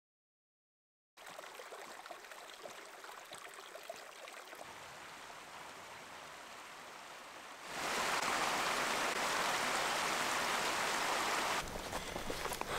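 A small rocky mountain creek running over stones, a steady rushing of water that starts after about a second of silence and grows louder about eight seconds in. Near the end the sound shifts to a lower rumble.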